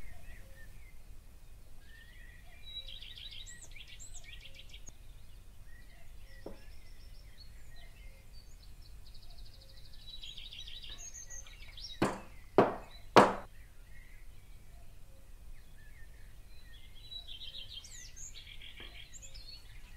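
Birds chirping in short runs in the background. A little past halfway come three sharp knocks in quick succession, like the square metal cake pan of batter being tapped down on the table.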